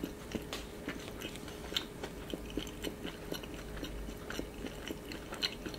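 Close-up crunchy chewing of croffle (croissant-dough waffle), small irregular crunches a few times a second over a faint steady hum.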